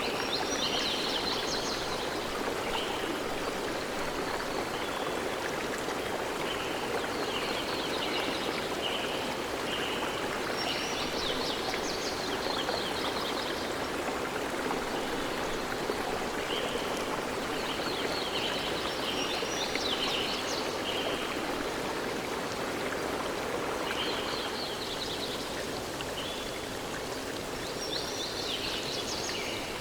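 Steady rush of running water, with small birds singing over it in short phrases of high, quick notes every few seconds.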